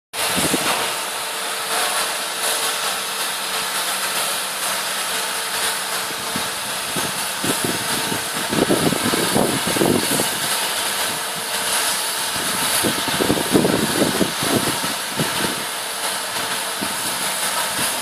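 Excavator's diesel engine running steadily at idle under a constant hiss, with uneven louder stretches about halfway through and again a few seconds later.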